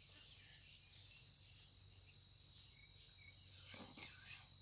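Crickets chirring in a steady, high-pitched drone.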